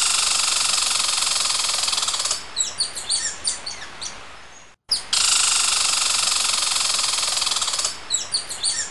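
Malabar giant squirrel calling: a long, loud rattling chatter that breaks into a string of short falling chirps. After a brief cut the same call sounds a second time.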